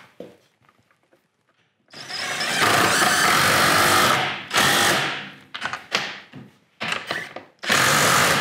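Cordless impact driver with a 14 mm deep socket tightening the nuts of a new ski carbide wear bar: a long run about two seconds in, a few short bursts as the nut snugs down, then another long run near the end.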